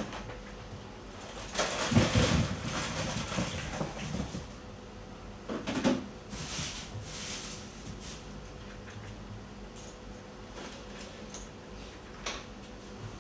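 Pick-and-place gantry robot's linear axes sliding in two runs: a longer one from about a second and a half in and a short one around six seconds. A faint steady hum lies underneath.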